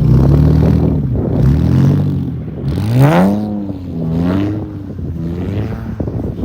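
Infiniti Q50's twin-turbo 3.0-litre VR30 V6 revved in a series of blips, the highest about three seconds in, with turbo flutter as the throttle closes after each rev.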